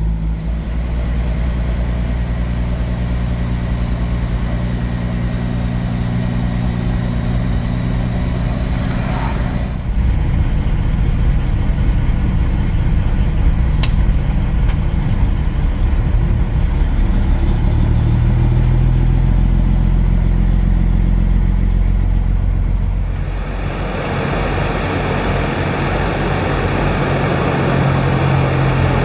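Diesel engine of a Kenworth W900 semi truck running steadily, a deep drone heard from the truck. About 23 seconds in the sound changes to a broader, steady mechanical whir over the engine idling.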